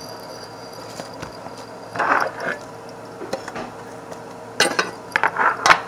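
Slime being squished by hand and pressed into a plastic container, with a short wet squelch about two seconds in. Near the end there is a quick run of plastic clicks and knocks as the container is handled.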